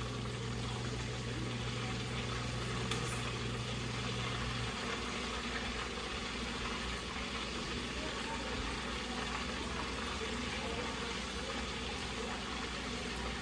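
Battered flounder deep-frying in a pot of oil: a steady sizzle, with a low steady hum underneath that stops about a third of the way through.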